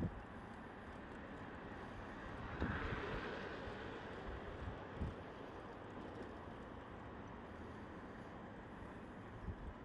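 Street traffic noise, steady throughout, swelling as a vehicle passes about three seconds in.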